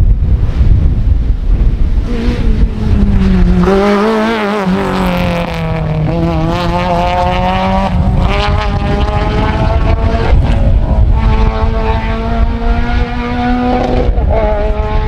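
A Volkswagen Golf GTI-style rally car's engine revving hard on a stage. The pitch drops and climbs through gear changes, then rises steadily, with another shift near the end. A heavy low rumble of wind on the microphone runs underneath.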